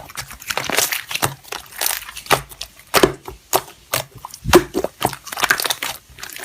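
Slime being squeezed and poked by hand, giving a quick, irregular run of crackling, popping clicks.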